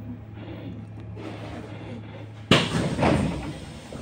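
Electric bus standing at a stop with a steady low hum. About two and a half seconds in, its passenger doors bang, a sudden loud knock followed by more clatter of the door mechanism a moment later.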